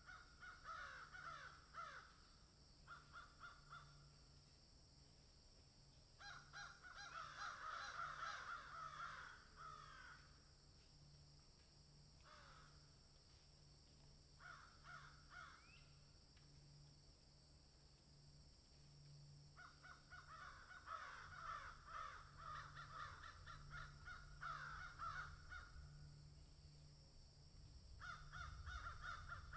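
Crows and magpies calling harshly in repeated bouts, some short and some lasting several seconds, with quiet gaps between.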